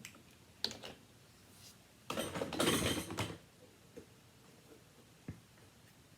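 Small objects being handled and set down: a click, then about a second of rustling clatter, then another click.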